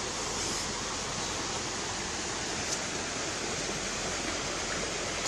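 A steady rushing hiss with no change throughout, and one faint tick about halfway through.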